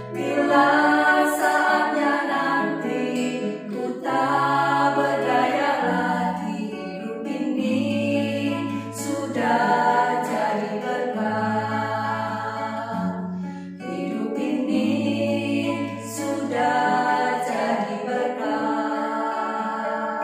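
Three women singing an Indonesian worship song together, accompanied by a strummed acoustic guitar, in phrases of a few seconds each.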